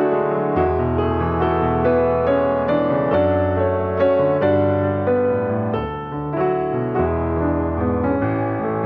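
Background piano music, a slow melody over held low notes.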